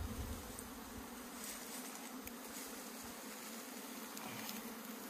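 Honeybees buzzing in a steady, continuous hum around a hive that has been opened to cut out its honeycomb.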